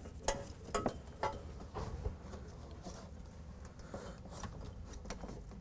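Light, scattered clicks and taps of hands handling a plastic fuel-line fitting and its caps while the line is being fitted, over a faint steady room hum.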